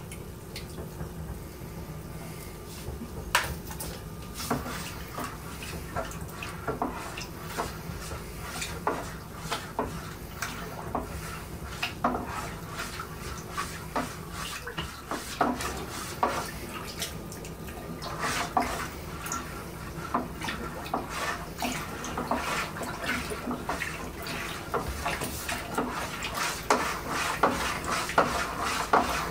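Metal spoon stirring liquid in a plastic brewing bucket, knocking and clinking irregularly against the bucket's sides with some sloshing, while honey and water are mixed for mead.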